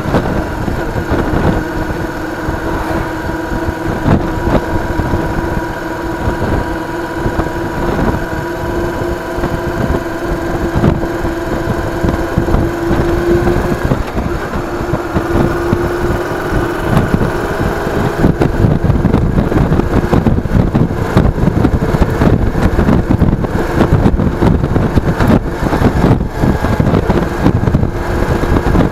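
A vehicle's engine running on the move, picked up by an action camera mounted on the vehicle. A steady engine hum rises slightly in pitch about halfway through, over a heavy road and wind rumble.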